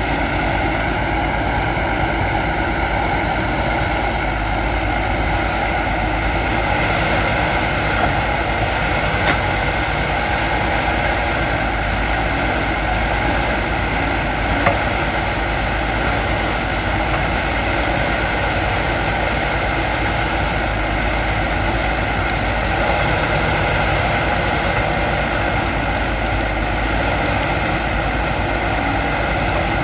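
Backhoe loader's diesel engine running steadily under work, with a couple of brief clanks partway through.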